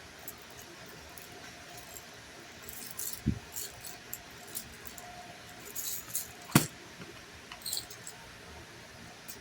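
Small metal jewelry findings and tools clinking and ticking as they are handled, a scatter of light jingles with two sharper clicks, the louder one about two-thirds of the way through.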